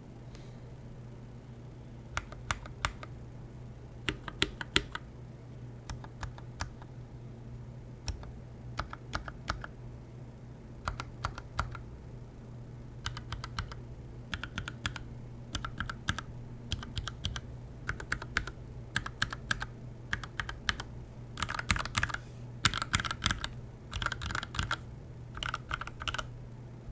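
Keychron K6 aluminium mechanical keyboard with Gateron Red linear switches, lubed with a Krytox mix, and PBT keycaps being typed on. The keystrokes come in short runs like words with brief pauses between them, starting about two seconds in and coming faster and denser towards the end.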